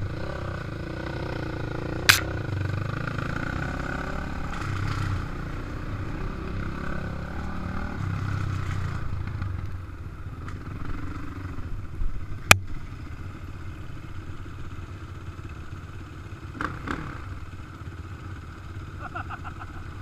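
KTM dirt bike engine running while ridden, its pitch shifting with the throttle, louder in the first half and settling lower after about ten seconds. Two sharp knocks come about two and twelve seconds in.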